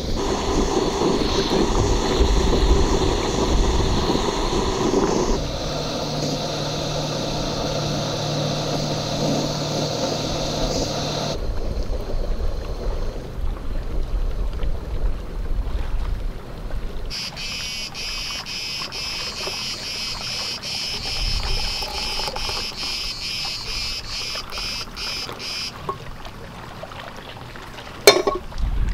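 Outdoor summer ambience cut together from several takes: a steady rushing noise at first, then cicadas chirring in a high, pulsing buzz for several seconds in the second half, and one sharp click near the end.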